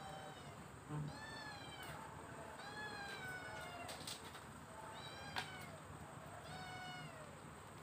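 Stray cats meowing repeatedly while being fed, a string of about six or seven short rising-and-falling meows.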